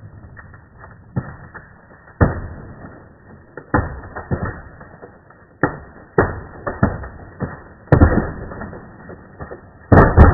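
Tree trunk cracking and splitting as it is felled, heard slowed down: a string of sharp cracks at uneven intervals, each dying away, the loudest coming near the end.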